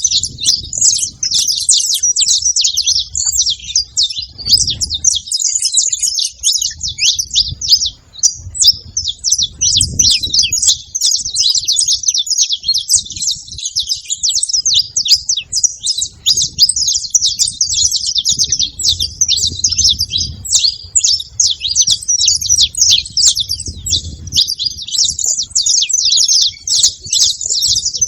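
Several saffron finches chirping and singing at once in a dense, unbroken chatter of high, quick notes, over a faint low rumble.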